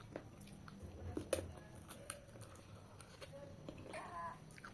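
Close mouth sounds of a person eating chicken and bottle gourd curry: scattered wet clicks and smacks of chewing, the loudest about a second in. There is a brief hum-like sound near the end.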